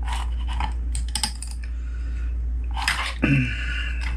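Small clicks and scrapes of a hand tool being worked into a hole in a circuit board to widen it by hand, over a steady low hum. A short hum-like sound comes about three seconds in.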